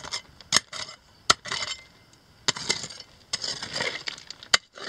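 Loose rocks clinking and clattering, with gravelly scraping, as stones and dirt are pulled away by hand from a buried mine opening in a waste rock pile. A few sharp clacks of rock on rock stand out among stretches of scraping.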